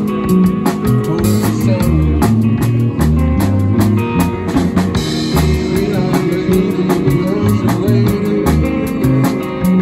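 Live rock band playing: electric guitar, electric bass and a Pearl drum kit, with a steady drum beat under moving bass notes.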